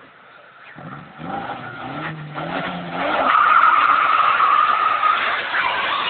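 Burnout by a GS-T coupe with a turbocharged four-cylinder engine. For the first three seconds the engine revs up and down, then the spinning tyres break into a loud, steady squeal that holds on as they smoke.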